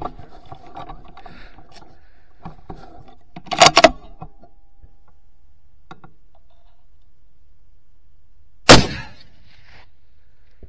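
A rifle shot about nine seconds in, very loud and sharp with a short ringing tail. A little under four seconds in there is a quick run of two or three loud cracks.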